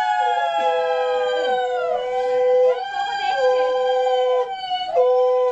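Several women giving ulu-dhvani, the Bengali ululation that marks an auspicious moment. The long high calls overlap, and one voice holds a steady pitch that breaks off and starts again a few times.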